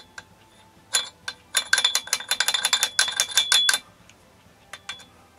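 Pliers clicking and scraping on the cotter pin in a small outboard motor's propeller shaft as the pin is worked out. There are a few single clicks, then a rapid run of metallic clicks with a faint ring from about a second and a half in to nearly four seconds, and two more clicks near the end.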